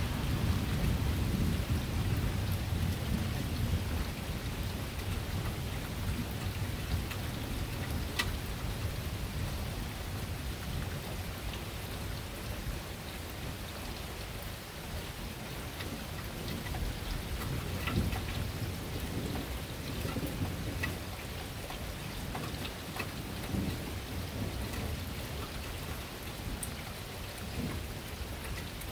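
Steady rain during a thunderstorm, with a low rumble of thunder dying away over the first few seconds. A few sharp ticks of nearby drops stand out over the rain.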